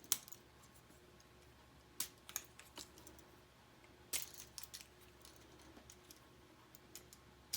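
Sharp clicks of K'nex plastic connectors and rods being unclipped and handled, a few separate snaps with quiet pauses between.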